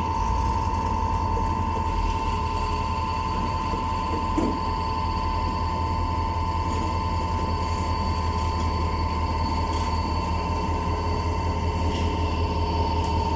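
A diesel locomotive's engine rumbles as it creeps slowly across a road crossing, under a steady high-pitched tone from the road-crossing warning signal. There is a single clunk about four seconds in.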